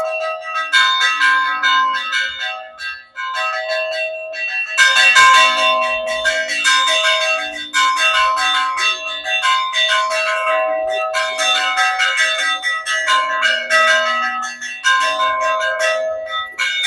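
Church bells rung by hand, several bells of different pitch struck in quick, uneven runs with short pauses between, ringing out to announce the start of the village fiesta.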